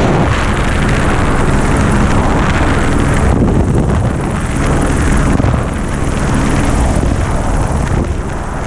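Loud wind rushing over the camera microphone in a helicopter's open doorway in flight, with the helicopter's engine and rotor running underneath.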